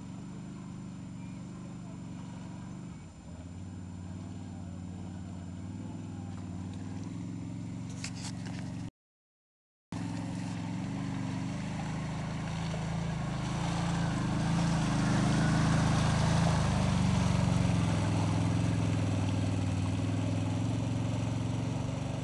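ATV (quad bike) engines running as the quads wade through deep muddy water, one growing louder as it comes close, with water churning around it in the second half. The sound drops out completely for about a second some nine seconds in.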